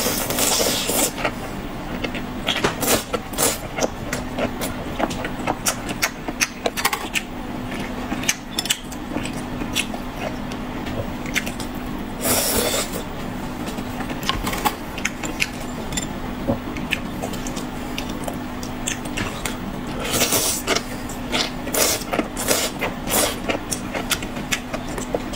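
Close-up eating sounds: chewing and slurping spicy cold-pot skewers, with scattered clicks and scrapes of skewers and tableware and a few louder slurps. A steady low hum runs underneath.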